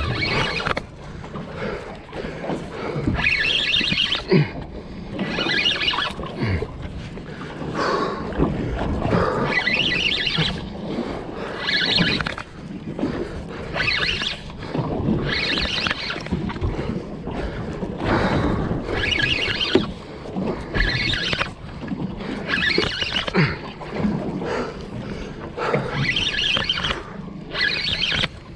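Spinning reel being cranked in short bursts, about every two seconds, as a hooked yellowtail kingfish is pumped up under load. Steady wind and sea noise runs underneath.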